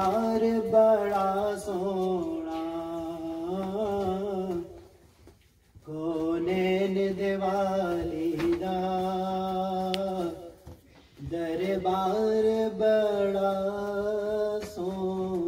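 A single voice reciting an Urdu naat unaccompanied, in long, slow, melodic phrases with held, wavering notes. Three phrases, broken by short pauses about five seconds in and again about eleven seconds in.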